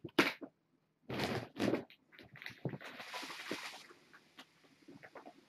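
Kittens brushing and bumping against the camera and its microphone: a few knocks and scrapes, then a second-long rustle of fur rubbing past about three seconds in, then faint scattered ticks.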